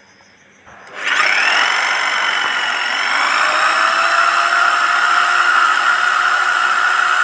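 Golden Bullet 750-watt corded hammer drill switched on about a second in, its motor whine rising as it spins up, then running steadily with the bit spinning free in the air.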